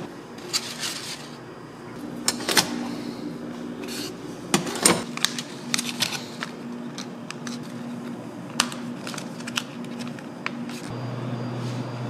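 Scattered light clicks, taps and rustles of handling styrofoam side-dish trays and a plastic sauce packet, over a steady low hum.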